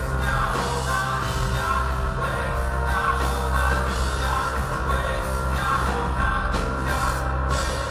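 Background music: a rock-style song with singing over a steady bass line. The bass drops out near the end.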